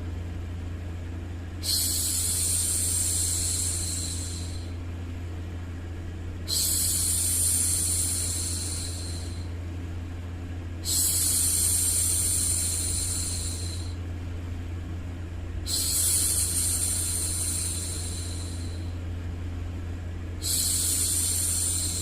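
A woman's voice shushing, a drawn-out 'shhh' of about three seconds, repeated about every four to five seconds, five times, the last starting near the end. Under it runs a steady low white-noise bed for soothing a baby to sleep.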